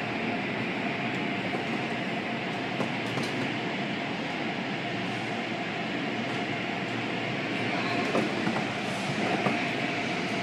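Automatic car wash heard from inside the car: cloth brushes scrubbing over the side window and bodywork with the steady rumble of the wash machinery, a few light knocks from about eight seconds in.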